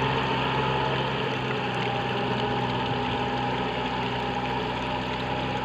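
Tractor engine running steadily at a constant pitch while pulling a disc harrow through a flooded paddy, growing slightly fainter as it moves away.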